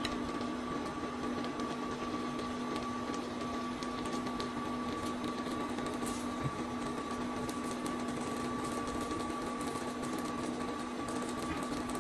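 Shrimp and meat skewers sizzling on a switched-on electric griddle: a steady sizzle with faint scattered crackles over a constant electrical hum.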